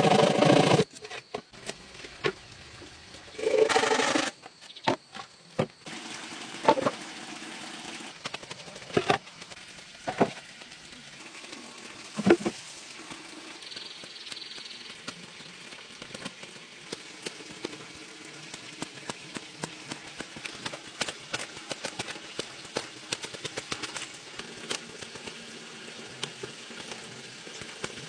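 Scattered knocks and taps of hand tools at work on bamboo poles and earth, the loudest a sharp knock about twelve seconds in, with many light ticks and scrapes of digging through the second half.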